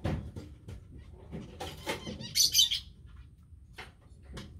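Metal hand tools clinking and rattling while someone searches through them for a Torx bit: scattered sharp clicks, with two brief clattering rattles about two seconds in.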